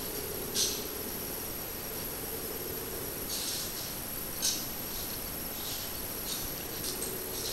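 Short, soft splashes of muddy paddy water, half a dozen irregular ones, as rice seedlings are pushed into the flooded field by hand, over a steady high thin whine.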